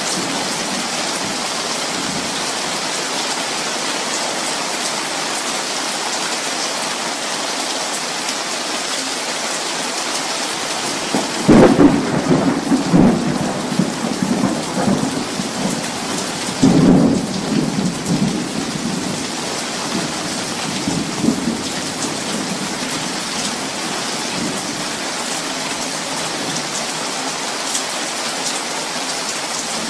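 Steady heavy rainfall with two thunderclaps, the first about a third of the way in and the second a few seconds later, each rumbling off for a few seconds before the rain alone carries on.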